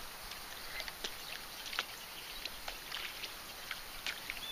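Quiet lake sound: small water lapping against a boat hull, with scattered faint irregular clicks.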